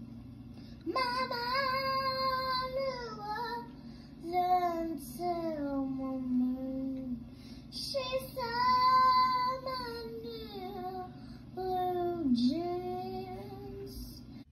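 A young girl singing a song in short phrases with long held, wavering notes.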